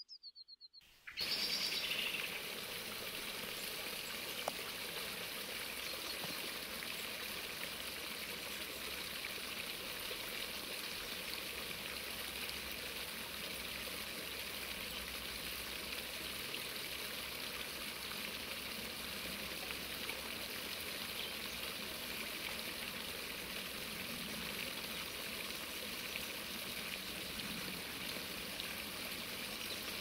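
Water feature running: water spilling over a cast iron bowl into stone bird-bath basins, a steady splashing trickle that starts suddenly about a second in.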